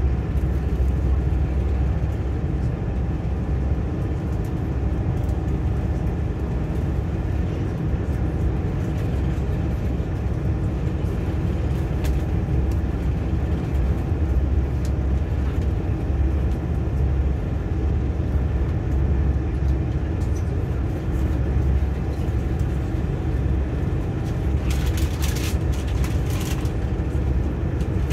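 Diesel engines of a Class 180 Adelante multiple unit running, the underfloor Cummins diesels giving a steady low rumble with an even hum above it. A few brief high-pitched rasps come near the end.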